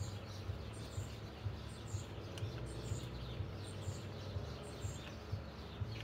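Birds chirping in short high notes over a steady outdoor background hiss, with soft, irregular low knocks.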